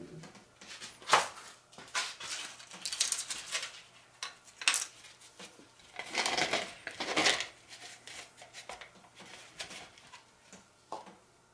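Irregular clinks, knocks and scraping of mixing cups and a stir stick as resin is mixed and divided into cups, with one sharp knock about a second in.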